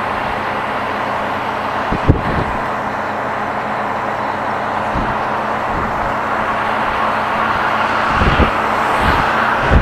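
Scania bonneted truck cruising on the highway, heard inside the cab: steady engine and road noise, with a few short low thumps, the sharpest about two seconds in and several more near the end.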